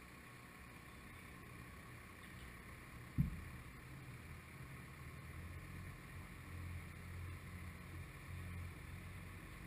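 Faint low rumble of a crane's engine as it hoists the load, growing a little louder from about five seconds in, with one sharp knock about three seconds in.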